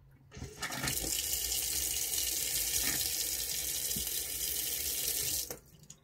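Water running hard from a caravan kitchen mixer tap into a stainless steel sink, its aerator filter freshly cleaned to cure poor flow. The tap is turned on about half a second in and shut off sharply near the end.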